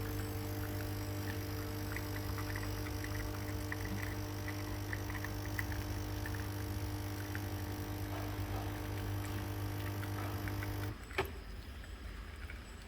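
Nespresso Creatista Plus pump humming steadily as it brews an espresso shot. It cuts off with a click near the end.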